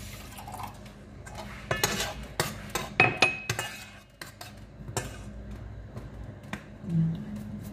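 Kitchen clatter: a metal spoon knocking and clinking in a stainless steel frying pan, a few scattered knocks with a short ringing clink about three seconds in. Near the end a spice jar is handled.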